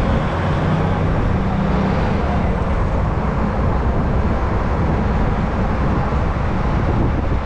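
Steady rumble of city traffic and a moving bus heard from the open upper deck, with wind on the microphone. A low hum stands out for the first two seconds or so.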